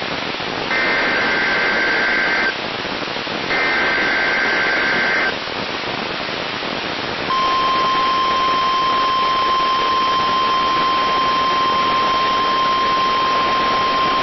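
NOAA Weather Radio test over radio hiss: two buzzy bursts of SAME digital header data, each about two seconds long and about a second apart. About seven seconds in, the steady 1050 Hz NWR warning alarm tone starts and holds.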